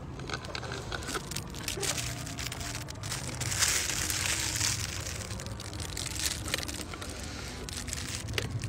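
Clear plastic bag around a drink cup crinkling and rustling close to the microphone, with many small crackles and a louder stretch of rustling about four seconds in.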